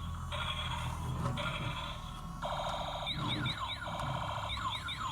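Electronic toy sound effects from a small speaker: bursts of buzzy beeping tones switching on and off, with a run of quick falling chirps about three seconds in, over a steady low hum.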